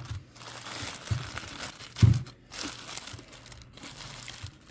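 Plastic parts bag crinkling and rustling as it is handled, with a dull thump about two seconds in.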